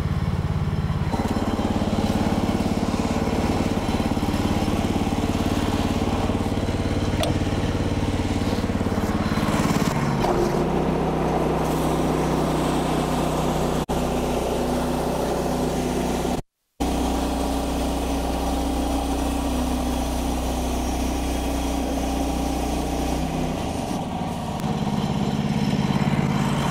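Woodland Mills HM130 portable bandsaw mill's gasoline engine running steadily. About ten seconds in, the engine note drops lower and heavier as the blade works through a pine log, and it returns near the end.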